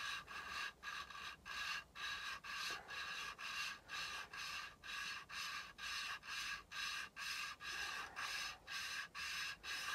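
Valve lapping on a Briggs & Stratton flathead engine: the intake valve is twisted back and forth on its seat by a suction-cup lapping stick rubbed between the palms, and the grinding paste rasps against the seat in an even rhythm of about three strokes a second. The paste is working round the seat to smooth out pitting so the valve seals.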